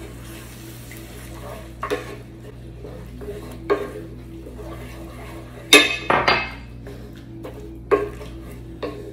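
Wooden spatula stirring cream, spinach and onions in a cast-iron skillet, with a series of short knocks and scrapes against the pan, the loudest about six seconds in, over a low steady hum.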